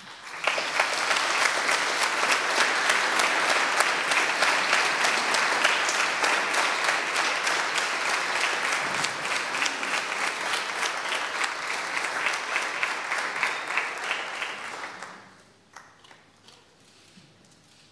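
Audience applauding, starting at once and holding steady, then dying away after about fifteen seconds into a few scattered claps.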